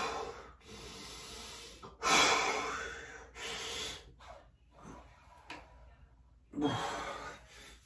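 A man breathing hard from exertion during a lifting set: three loud, forceful breaths, at the start, about two seconds in and near the end, each trailing off over about a second.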